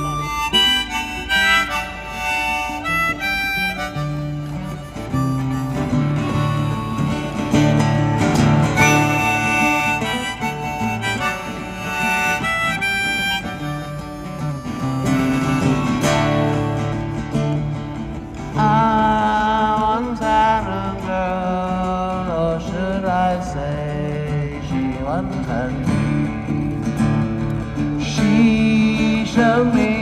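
Harmonica playing a melody of held notes over strummed acoustic guitar chords.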